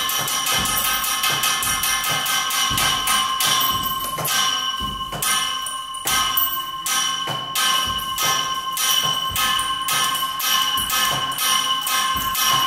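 Metal being tapped as improvised percussion: quick irregular strikes, about two to three a second, over a steady metallic ringing of several held tones.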